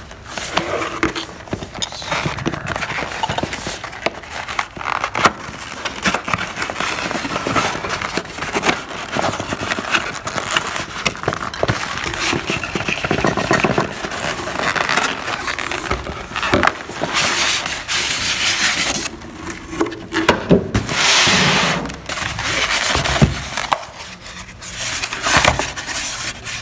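Cardboard and polystyrene packaging being handled and opened: continuous scraping, rustling and crackling, with two longer, louder scraping sweeps in the second half.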